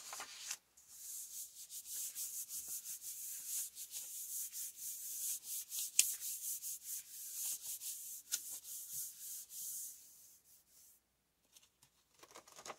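Palm rubbing back and forth over a sheet of paper laid on a gelli plate, a steady papery hiss of scratchy strokes as the paper is burnished to pick up the paint print. One sharp tick about halfway through, and the rubbing stops about two seconds before the end.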